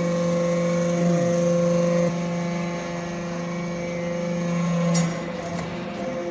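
Hydraulic briquetting press's power unit running with a steady, even hum. Its tone shifts about two seconds in, and a single clunk comes about five seconds in.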